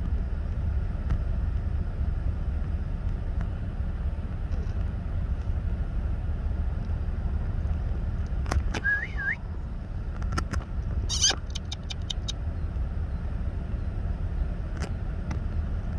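Steady low wind rumble on the microphone. A short rising bird call comes about nine seconds in, and a sharp clatter of quick clicks about eleven seconds in.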